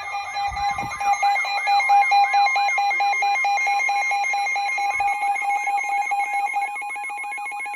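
Several weather-radio alert tones overlapping: a steady alarm tone typical of the NOAA Weather Radio 1050 Hz warning tone, a fast pulsing electronic beep, and a warbling tone that swoops up and down about two and a half times a second.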